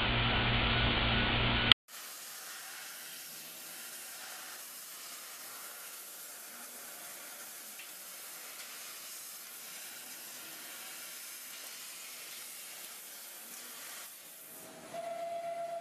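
Steady, even hiss of an NTC TLM 5-axis CO2 laser cutting head cutting holes in a metal cylinder. It follows a short stretch of louder machine running that cuts off abruptly under two seconds in. Near the end a steady mid-pitched tone with a pulsing beat starts.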